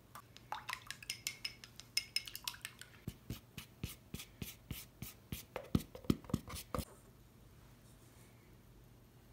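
Handheld flour sifter clicking and tapping against a glass mixing bowl as flour is sifted in: a quick run of sharp clicks, about three or four a second, that stops after about seven seconds.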